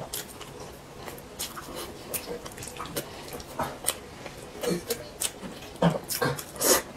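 Close-miked eating: a woman chewing rice and saucy braised eggplant with wet clicks and lip smacks, and a few louder slurps as food goes into her mouth in the last two seconds.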